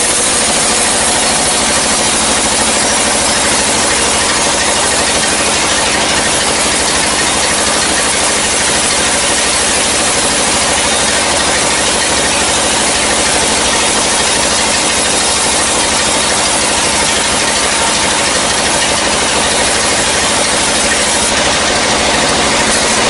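Sawmill log saw running steadily as it cuts a slab lengthwise off a dry log: a loud, even, grinding whine with no break.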